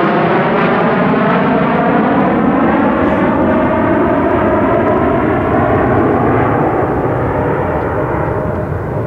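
A formation of four F-15J Eagle jet fighters flying past, their twin F100 turbofan engines making a loud, continuous roar. A whine in the engine noise slides slowly down in pitch, and the sound eases a little near the end as the jets move away.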